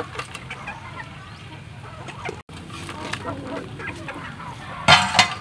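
Chickens clucking, with one loud squawk near the end.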